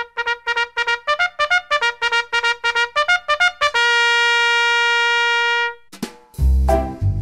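Intro music: a quick run of short staccato notes ending on one long held note, then after a brief break a different tune with a heavy bass beat starts near the end.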